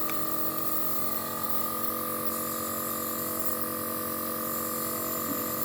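Nebulizer compressor running, a steady electric hum with a hiss of spray.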